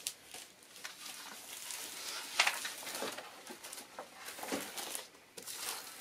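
Thin plastic window-insulation film crinkling and rustling as hands press it onto double-sided tape along a window frame, with scattered sharper crackles, the loudest about two and a half seconds in.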